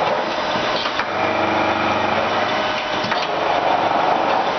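Jones and Shipman 540 fully hydraulic surface grinder running steadily, with a short knock about a second in and again about three seconds in.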